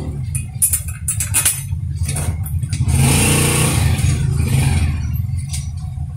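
A steady low engine rumble that swells louder for about a second and a half, about three seconds in, with scattered light clicks of small metal parts being handled as a chainsaw bar and cover are fitted onto an angle grinder.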